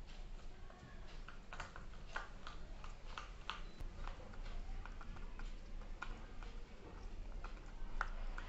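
Two pigeons pecking grain from a metal bowl: irregular sharp ticks and clicks as their beaks strike the grain and the bowl, a few a second.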